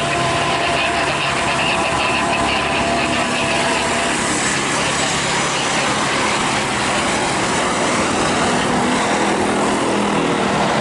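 Steady loud engine noise of a jet airliner, a rushing rumble with a faint whine that fades about four to five seconds in, with voices in the background.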